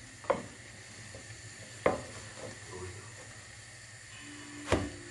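Slotted metal spoon knocking against a frying pan three times, sharp short clinks, over the steady sizzle of puff-puff dough balls deep-frying in sunflower oil.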